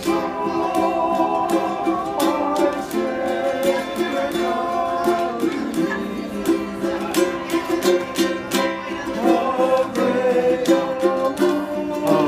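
Hawaiian music: a ukulele strummed in a steady rhythm, with singing.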